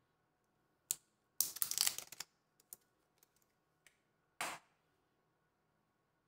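Two small batteries handled in the hands: a sharp click about a second in, then nearly a second of dense clicking and clattering, a few light ticks, and a short scrape at about four and a half seconds.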